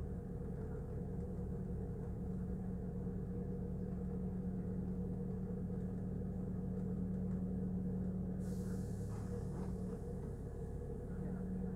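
Interior of a regional train: a steady motor hum and wheel rumble as the train slows into a station. About eight seconds in, the hum note drops away and a hiss of air starts, typical of the brakes as it comes to a stop.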